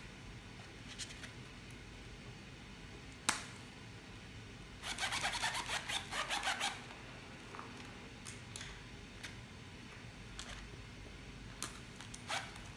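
Leather wallet being handled: a sharp click a few seconds in, then about two seconds of quick rubbing strokes, and a few light taps and clicks afterwards.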